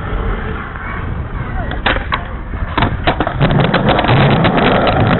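Skateboard wheels rolling over pavement, a steady rumble with sharp clacks. The clacks start about two seconds in and come rapidly from about three seconds on, as the rumble grows heavier.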